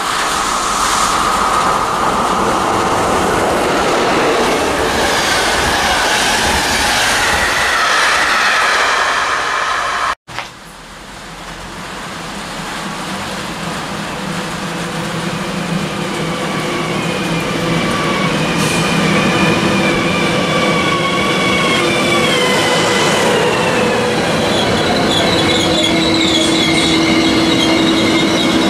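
Two trains on electrified track: a train running past, then, after a cut, a ČD class 650 RegioPanter electric multiple unit pulling into the platform, its motor whine falling in pitch as it brakes, ending in a steady hum as it comes to a stand.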